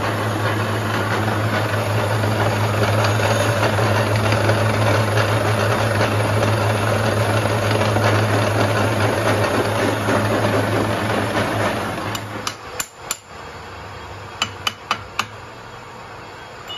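Metal lathe turning an iron sleeve: the motor's steady hum under the loud noise of the tool cutting. About twelve seconds in the cutting stops and the machine quietens, and a few sharp metallic clicks and knocks follow.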